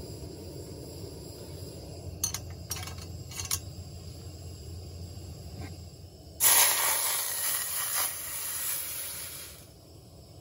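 Canned minestrone poured into a hot stainless steel pot on a single-burner propane stove, sizzling loudly for about three seconds before dying away. Earlier, a few light metal clinks as the pot is set on the burner's grate, over a steady low rumble.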